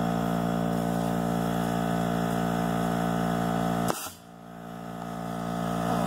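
A small engine running with a steady, even hum, and a single sharp blast about four seconds in as the compressed-air corn cannon fires; right after the blast the hum drops away and slowly comes back up.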